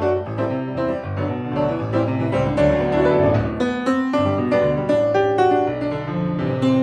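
Grand piano played solo: a steady flow of melody notes over held bass notes.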